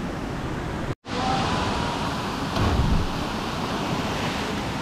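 Steady rushing of a waterfall and creek water, with wind rumbling on the microphone. The sound drops out for an instant about a second in, then the rush of the falls carries on, brighter and hissier.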